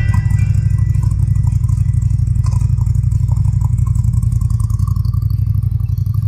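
Ducati Scrambler's air-cooled L-twin engine running at low revs, heard close to the exhaust: a deep, even, pulsing rumble.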